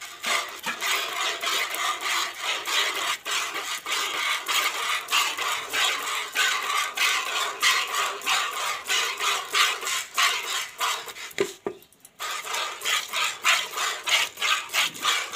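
A cow being milked by hand: milk squirting into a plastic bucket in rhythmic hissing spurts, a few a second, with a short break about eleven seconds in.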